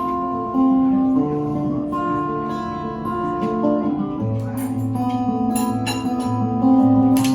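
Finger-picked guitar in a slack-key-style open tuning, played live as a song's instrumental intro, with notes left ringing over one another. Deeper bass notes come in about four seconds in, and there is a sharp percussive hit near the end.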